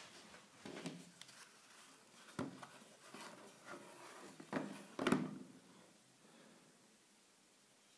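Viper Borr fixed-blade knife being worked out of its stitched leather sheath: a string of soft leather rubs, scrapes and small knocks, the loudest a little after five seconds in.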